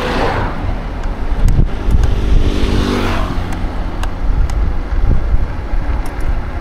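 Road traffic heard while riding an e-scooter: wind rumble on the microphone, with a vehicle rushing past at the start and a motor vehicle engine humming past, its rush peaking about three seconds in.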